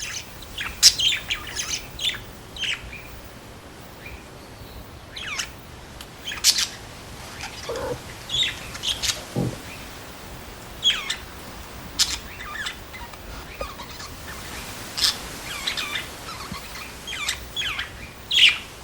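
Small birds chirping and tweeting in short, high calls that come in scattered clusters, with a couple of lower, falling sounds around the middle.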